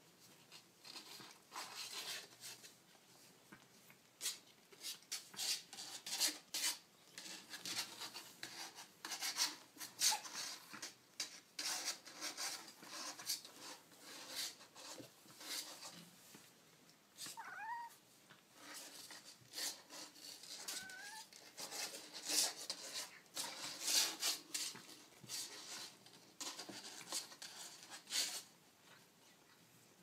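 Young kittens scrabbling and rustling in a blanket-lined cardboard box, claws scratching on cardboard and fabric, with two short kitten mews about halfway through.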